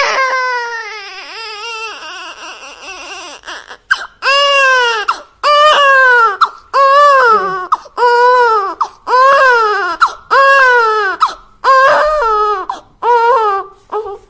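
Baby crying: a loud wail at the start that trails off, then a steady run of repeated cries about one a second, each rising and falling in pitch.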